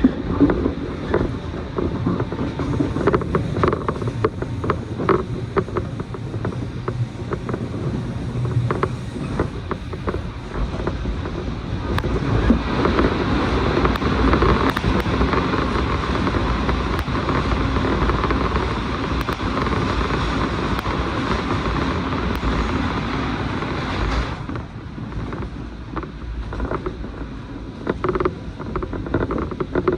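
Cabin noise of a moving train, heard from inside the carriage: a steady rumble of wheels on rail with irregular clicks and creaks. The noise grows louder and hissier about twelve seconds in and drops suddenly at about twenty-four seconds.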